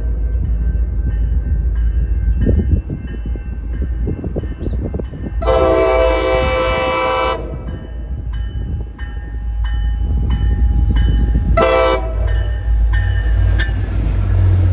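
A train's air horn sounds one long blast of about two seconds, then a short blast about four seconds later, over the steady low rumble of a moving train.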